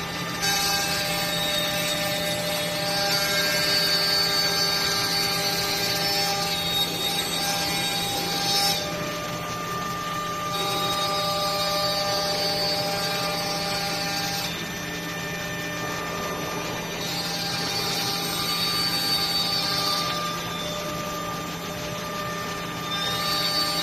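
Desktop CNC router spindle running with a steady whine while its bit carves a wooden workpiece turned on the rotary fourth axis. The cutting hiss swells and eases in stretches of a few seconds as the bit moves along the wood.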